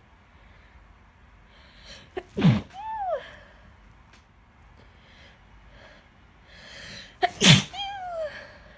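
Two sneezes from a young woman, one about two and a half seconds in and one near the end. Each has a short breath in, a sharp burst and a voiced tail that falls in pitch. She suspects they are the start of a cold.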